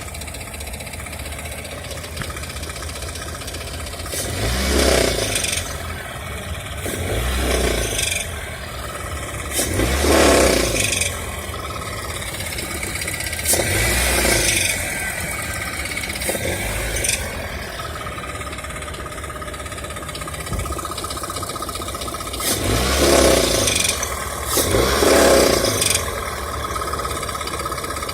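Toyota 1ZZ-FE inline-four engine idling and revved in about seven short blips, with a knocking from the engine that the owner takes for something cracked inside.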